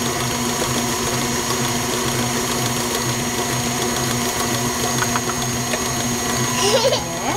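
KitchenAid tilt-head stand mixer running steadily with a constant whir, its beater working thick cookie dough as rolled oats are added.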